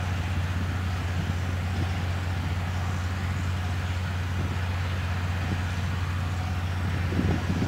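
Heavy diesel engines running steadily at a drilling rig: a constant low drone with a deep hum, swelling briefly near the end.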